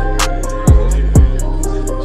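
Hip-hop instrumental beat: quick, even hi-hat ticks over a deep held bass, with two low bass notes that slide down in pitch partway through.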